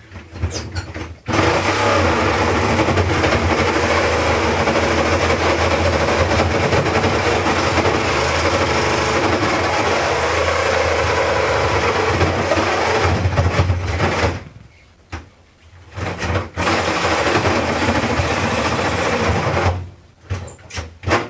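Cordless reciprocating saw running and cutting into a refrigerator's metal body: one long steady run of about thirteen seconds, a pause, then a shorter run of about three seconds. It cuts poorly, which the user puts down to a spent battery, a worn blade or both.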